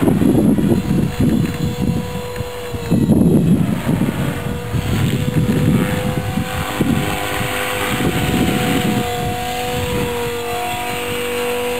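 Motor of a small electric radio-controlled model aircraft whining at a steady pitch, with a second, higher tone joining about halfway. Gusts of wind buffet the microphone in the first half.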